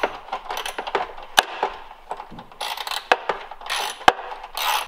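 Socket ratchet clicking in short bursts while a 5/16 shroud bolt is driven in, with a few single sharp metal clicks between the bursts.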